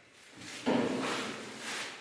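Aluminium-framed kitchen cabinet doors being pulled open by hand: a sudden noisy sound about two-thirds of a second in that fades over about a second.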